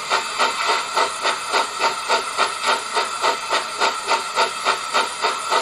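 Steam locomotive exhaust chuffs from the ESU LokSound 5 sound decoder in a 1:32 Gauge 1 model of a Prussian T3 tank engine, played through the model's small onboard loudspeaker. The chuffs come at a steady beat of about four to five a second, as the decoder's normal running sound at moderate speed.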